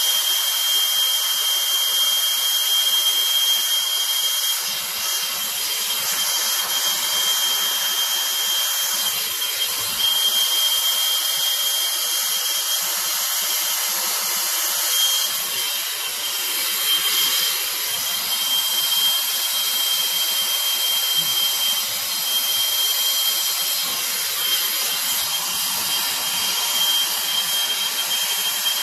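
Hose-fed gas torch burning with a steady hiss as its flame heats a copper pipe fitting for soldering, with a thin high whistle running through it.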